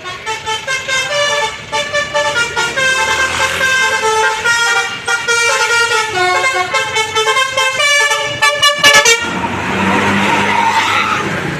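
Bus 'telolet' basuri musical horn playing a quick melody of short notes stepping up and down. It stops about nine seconds in and gives way to a loud rushing noise.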